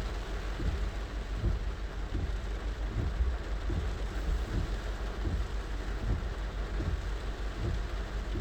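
Heavy rain on a car's roof, heard from inside the cabin: a steady dense hiss with frequent, irregular dull low thuds of larger drops striking the roof.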